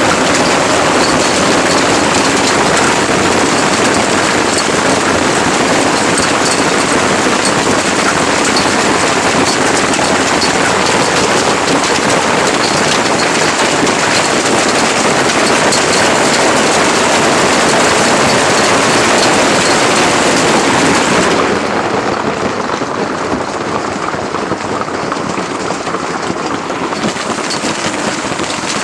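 Hailstorm: hail and rain pelting down in a dense, steady hiss with faint ticks, easing off somewhat after about twenty seconds.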